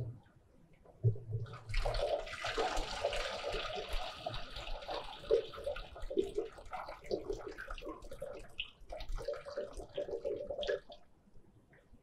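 Muddy soil wash water poured from a metal pan onto a metal sieve, splashing as it goes: the pour starts about two seconds in, is strongest at first, then tails off and stops near the end. This is the washed soil sample being carried over the sieve in a washed sieve analysis.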